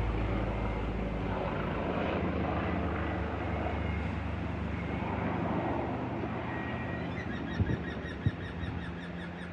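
Agusta Caweel CW-86 aircraft sound effect: a steady engine and airflow noise with a low hum, slowly fading, with two short clicks near the end before it cuts off suddenly.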